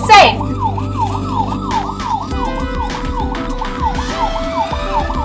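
Toy fire engine's electronic siren wailing, a fast rise-and-fall of pitch repeating about two and a half times a second.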